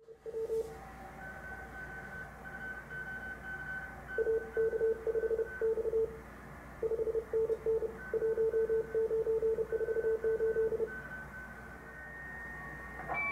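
Morse code (CW) signals heard through a Collins 75S-1 shortwave receiver: a mid-pitched tone keyed on and off in short and long elements, with a fainter, higher keyed tone behind it, over steady band hiss. Near the end, steady whistling tones come in as the tuning moves across other signals.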